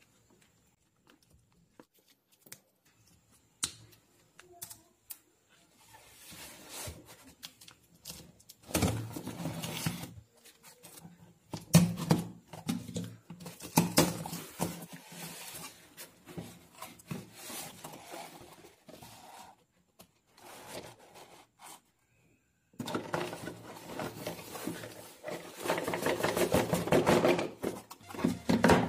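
A cardboard shipping box being opened by hand: a few small clicks as a credit-card folding knife is handled, then scraping and tearing as the packing tape is slit and peeled off. The cardboard flaps are then pulled open with a louder, denser stretch of rustling and scraping near the end.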